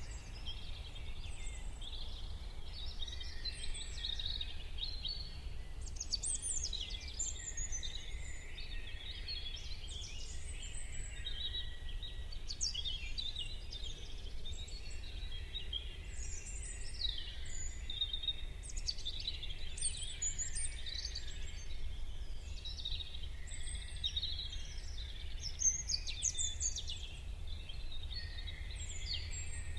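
Morning chorus of many songbirds, with overlapping chirps, trills and short songs that never pause. Under them runs a steady low rumble.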